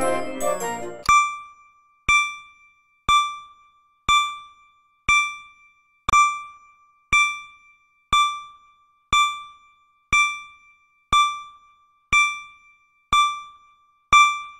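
A short keyboard jingle ends about a second in. Then a countdown timer's electronic ding sounds once every second, fourteen times, each one a bright pitched tone that fades before the next.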